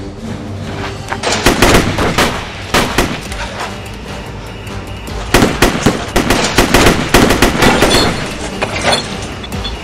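Rapid gunfire in a film shootout, heard as two stretches of quick shots: one starting a little over a second in, the other from about the middle, both over background music.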